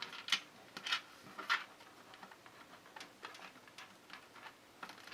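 Light clicks and taps of a USB cable and its plastic connector being handled and routed inside a computer case: three sharper clicks in the first two seconds, then lighter scattered ticks.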